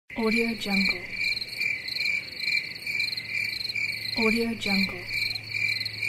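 Crickets chirping steadily: a high, even pulsed chirp repeating about two and a half times a second.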